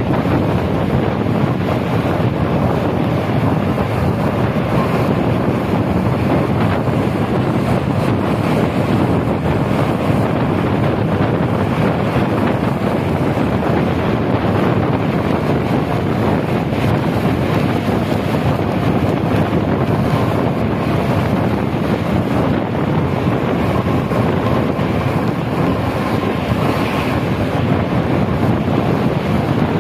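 Steady rushing noise from a moving tour bus on a rain-soaked road: wind buffeting the microphone over the bus's running and road noise.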